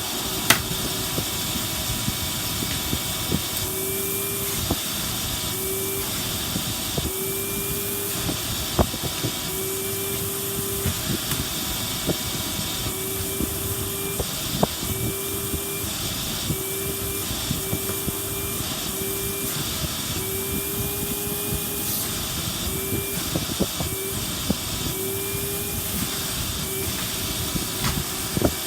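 Vacuum cleaner running steadily with a hiss of rushing air. A steady tone cuts in and out in short stretches, and scattered small clicks and knocks run through it.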